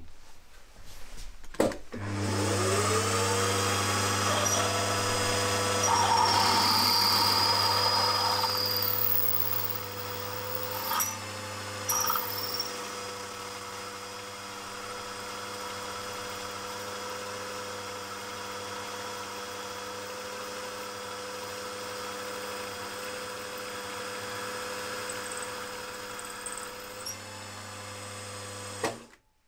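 Milling machine spindle starts about two seconds in, its motor whine rising and settling to a steady pitch, while a twist drill bores through a metal plate. There are two short clicks near the middle, and the motor cuts off suddenly just before the end.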